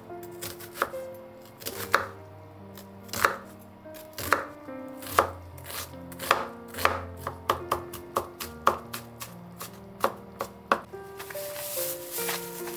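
Kitchen knife chopping on a cutting board in uneven strokes: louder, spaced-out chops at first, then quicker, lighter ones, stopping about a second before the end.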